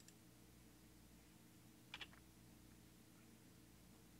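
Near silence over a low steady hum, broken by a faint click at the start and a quick double click about two seconds in: clicks of a computer mouse and keys.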